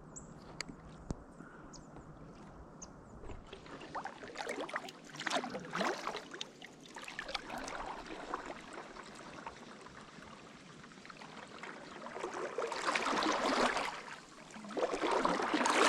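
Kayak paddle strokes splashing in lake water, with water trickling off the blade between strokes; the first few seconds are quieter, and the splashing grows louder near the end.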